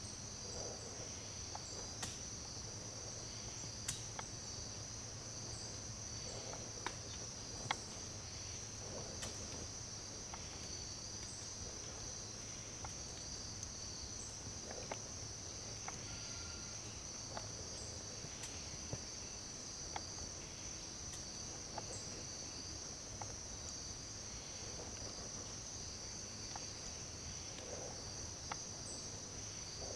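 A steady, high-pitched insect chorus trilling without a break, with scattered sharp ticks and clicks every few seconds.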